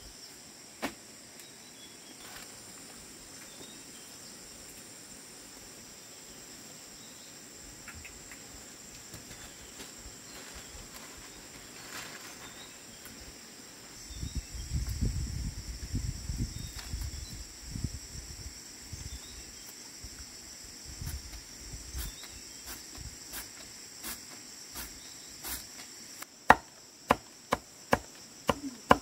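Insects trilling steadily in a high, even drone, with some low rumbling about halfway through. Near the end, sharp chops of a knife on a cutting board begin, about two a second.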